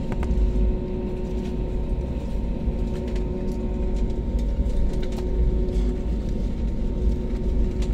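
Steady low rumble of a taxiing Airbus A320-family airliner heard from inside the cabin: the engines and air system give a constant hum at a few fixed pitches, with a few faint clicks.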